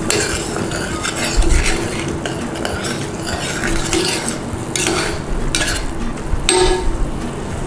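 Metal spoon stirring a stainless steel saucepan of hot chicken stock and sweetcorn, scraping around the pan in repeated strokes.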